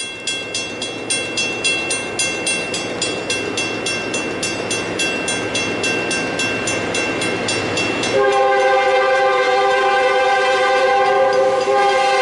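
Grade-crossing bell ringing at about three strokes a second. About eight seconds in, the lead GE B40-8 locomotive's multi-chime air horn comes in with one long blast that holds on as the train nears the crossing.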